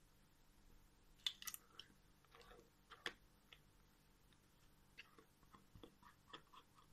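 Faint clicks and soft scraping of a spoon working whipped cream inside a stainless steel cake ring, with a couple of sharper ticks about a second in and near three seconds, then a scatter of small clicks near the end.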